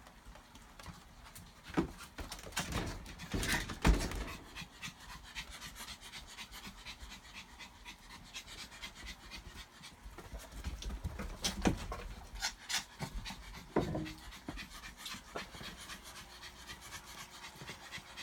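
Pomeranian panting, with several louder knocks and scuffles, the loudest about two and four seconds in.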